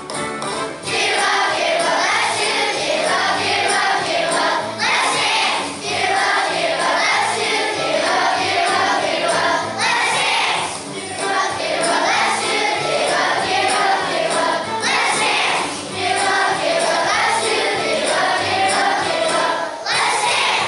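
A choir of second-grade children singing along with recorded music played over loudspeakers. The song stops abruptly near the end.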